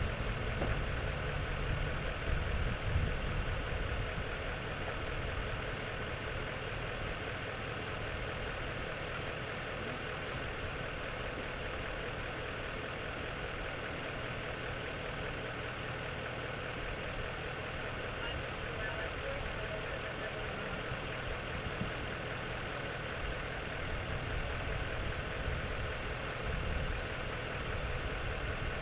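Steady road traffic and running vehicle engines, a low rumble that swells near the start and again near the end as vehicles go by.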